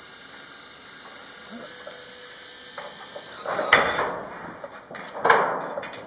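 Corrugated sheet-metal roofing flexing and scraping as the sheet is hauled down, in two loud sudden noisy bursts, about three and a half and five seconds in, over a faint steady hiss.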